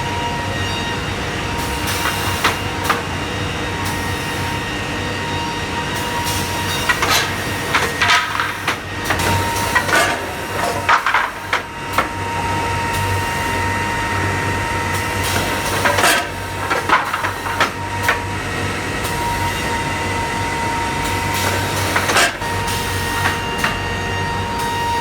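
CNC two-direction milling and drilling woodworking machine running with a steady hum and a whine, broken four times by bursts of drilling and milling into wood with sharp clacks.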